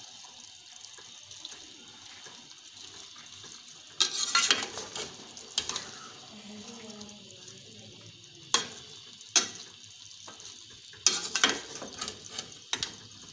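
Metal spoon scraping and knocking against a metal pot while stirring chopped potatoes into a wet masala, over a soft steady sizzle. A cluster of scrapes comes about four seconds in, single knocks follow a few seconds later, and another cluster comes near the end.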